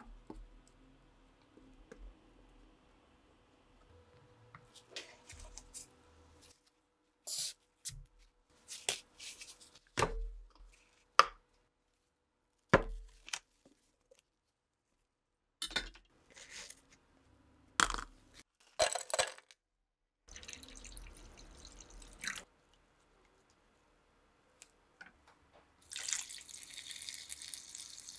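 Faint whir of a small electric screwdriver driving screws into a plastic gutter tray, then a string of sharp plastic clicks and knocks as a bucket lid is worked open. Near the end liquid is poured in a steady splashing stream into the plastic tray.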